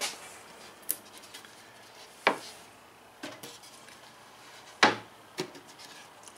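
Bottom-hinged wooden cabinet doors being flipped open and shut by hand, making a series of sharp wooden knocks and clicks, the loudest about five seconds in.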